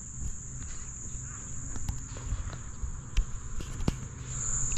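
Steady high-pitched insect chorus, typical of crickets or cicadas, running unbroken. Scattered light clicks and knocks, like footsteps or handling, sound over it.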